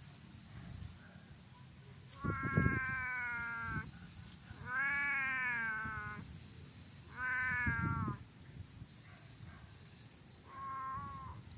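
Grey tabby cat meowing four times, drawn-out meows a couple of seconds apart, the second rising and then falling in pitch and the last one short.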